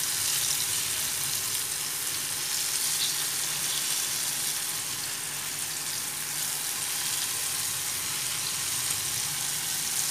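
Stuffed green chillies deep-frying in hot oil in a kadhai: a steady sizzle.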